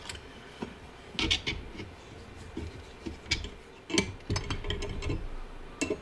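Scattered metallic clinks and clicks of hand tools on a steel bearing puller, as vice grips are clamped onto the puller and its threaded bolt is worked to pull the bearing off a hot tub pump motor's shaft. The clicks come in several short clusters, the loudest about four seconds in.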